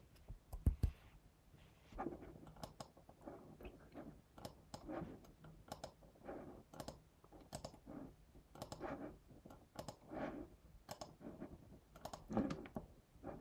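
Faint typing on a computer keyboard, with irregular clicks of a mouse or trackpad.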